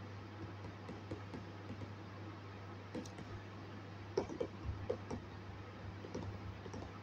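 Calculator keys being tapped: scattered light clicks, a few louder ones around four to five seconds in, over a steady low room hum.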